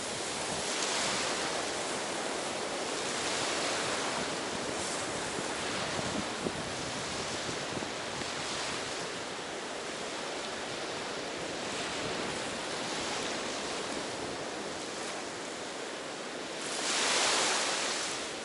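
Ocean surf washing onto a beach, rising and falling in repeated swells. The loudest wave breaks near the end.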